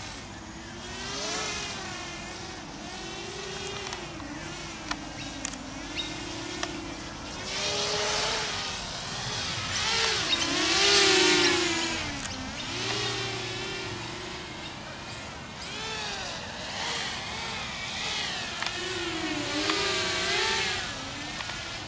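Walkera F210 racing quadcopter's four brushless motors and propellers whining in flight, the pitch constantly rising and falling with the throttle. Loudest about ten to twelve seconds in, as it passes low and close.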